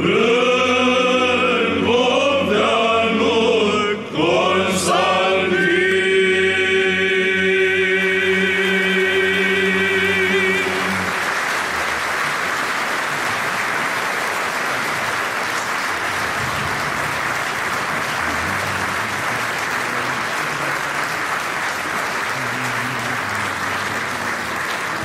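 Male Byzantine-style choir singing the closing phrase over a steady low drone, ending on a long held final chord that stops about eleven seconds in. Then steady audience applause.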